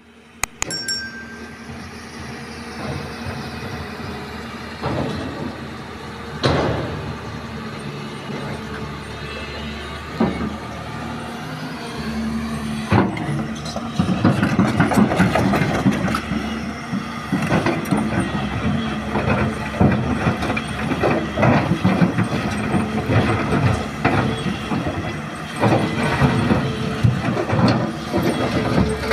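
Hyundai hydraulic excavator's diesel engine running with a steady hum, with several sharp clanks in the first half. About halfway in it gets louder and busier as the machine works under load.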